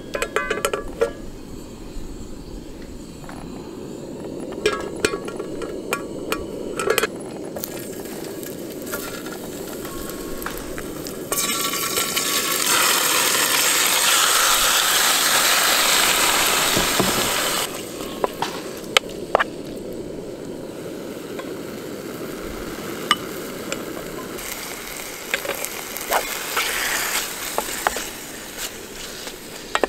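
Raw chicken pieces dropped into hot oil in a nonstick camping frying pan, frying with a loud sizzle that cuts off suddenly after about six seconds. Before and after, sharp clinks and knocks of the pan and a wooden spoon stirring, with a fainter sizzle later on.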